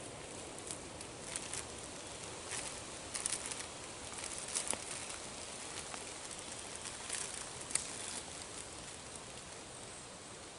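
Faint, irregular rustling and crackling over a steady outdoor hiss: a person moving about and handling something among ferns and undergrowth.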